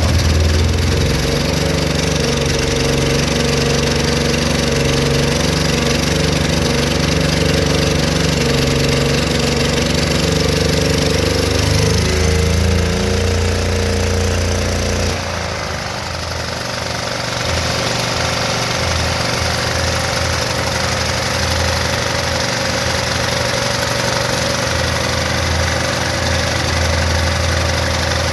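An 8,000-watt portable generator's engine runs steadily on propane fed through a tube into its air intake, with its gasoline tank empty. About 15 seconds in, its note changes and briefly drops a little in loudness, then it settles and keeps running.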